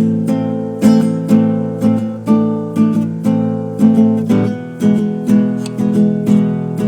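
Acoustic guitar music, strummed in a steady rhythm of about two strums a second.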